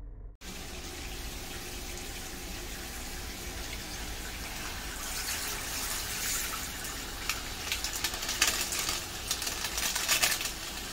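Tap water running into a bathtub, a steady rush. From about halfway there is crackly rustling as bath powder is shaken from a paper packet into the water.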